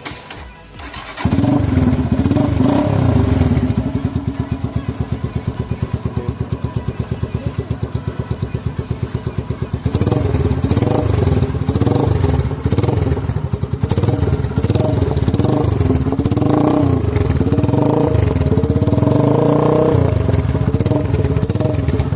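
Yamaha YBR-G's 125 cc single-cylinder four-stroke engine breathing through an aftermarket SC Project exhaust. It catches about a second in and idles with a fast, even beat. From about halfway through it is revved in repeated throttle blips.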